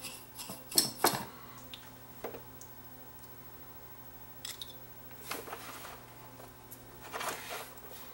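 Small clicks and taps from fingers handling a circuit board and a soldering iron touching the joints, loudest near one second in, with two short scratchy hisses later on, over a faint steady low hum.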